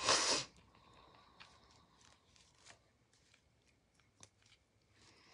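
A short hiss right at the start, then near silence broken by three faint clicks of a stir stick against a small plastic cup as resin is stirred slowly.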